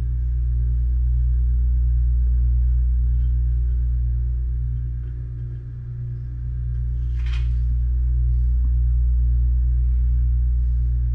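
A steady low rumble that slowly swells and eases, with a brief scraping sound about seven seconds in.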